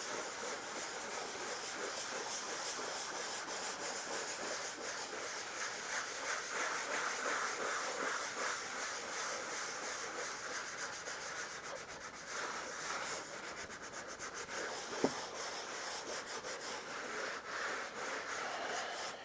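Sanding sponge rubbed in a circular motion over the dried first coat of drywall joint compound: a steady rubbing hiss as the bumps and globs are smoothed off. One short tap stands out about fifteen seconds in.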